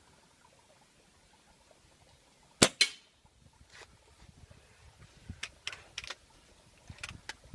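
Scoped air rifle firing once, a sharp crack about two and a half seconds in with a second crack a moment later. Several lighter clicks and knocks follow as the rifle is handled.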